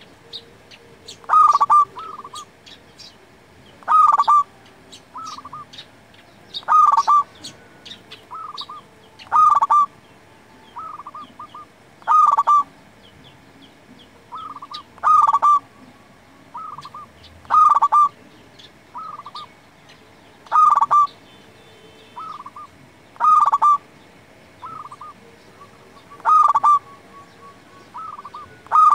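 Zebra dove (local perkutut) cooing its song: a loud staccato phrase repeated about every two and a half to three seconds, each a sharp opening note followed by a few softer trailing coos.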